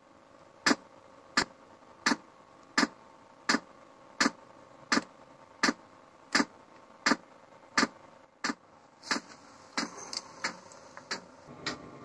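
Chinese diesel heater (iMars CH-S1, 12 V) running, its fuel dosing pump ticking steadily at about three clicks every two seconds over a steady hum. After about eight seconds the ticks come faster and a high whine joins in.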